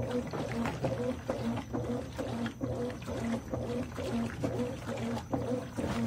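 Consul 13 kg top-load washing machine agitating a load of towels: the motor hums in short, even strokes, about two or three a second, as the agitator swings back and forth, with water churning.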